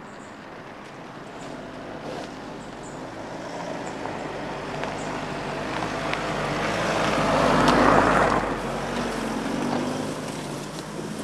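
Mitsubishi ASX compact SUV driving slowly over a dirt track, its engine running at low revs with tyre noise from the ground. It grows louder as it approaches, is loudest about eight seconds in as it passes close by, then fades.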